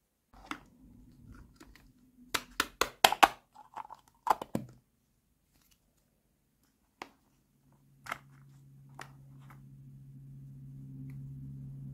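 Hollow plastic toy food pieces (lidded cups and ice-cream cones) clicked and tapped against each other and a plastic tray, with a quick run of sharp clicks two to three seconds in and a few scattered taps after. A low steady hum sets in after about eight seconds.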